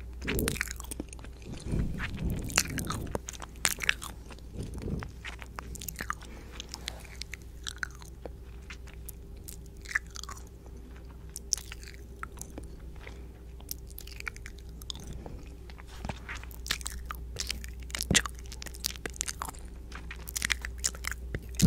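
Close-miked ASMR mouth sounds: irregular wet clicks and smacks, busiest near the start and again near the end, over a faint steady microphone hum.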